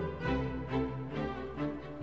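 Instrumental background music with bowed strings playing a moving melody over low bass notes.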